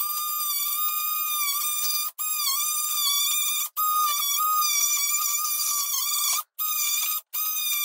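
DeWalt cordless oscillating multi-tool cutting around the edge of a metal socket back box set in a solid medium-density concrete block wall. It makes a steady high-pitched whine that breaks off briefly four times as the blade is repositioned.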